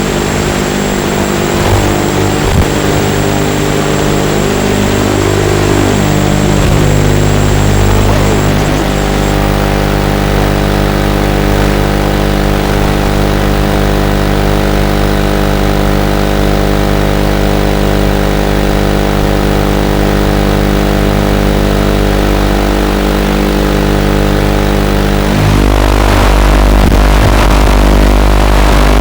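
Racing quadcopter's brushless motors and propellers whining at a steady throttle, the pitch stepping to a new level about eight seconds in and again near the end.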